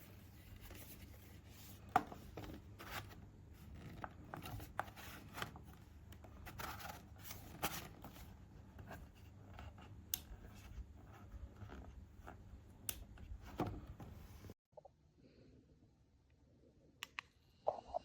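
Irregular clicks, scrapes and rustles of something being handled, over a low hum; they cut off suddenly near the end, leaving quiet room tone with a couple of faint clicks.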